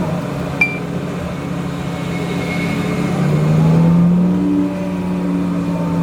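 Transit bus engine and drivetrain heard from inside the bus, running steadily and then climbing in pitch about three seconds in as the bus accelerates. A short sharp click comes under a second in.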